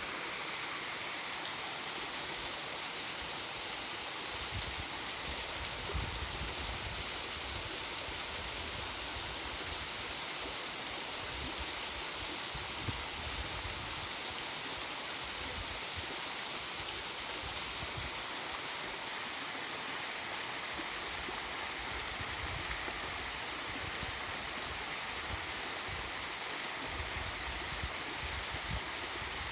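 Waterfall and river rushing steadily: an even, unbroken hiss of falling and flowing water.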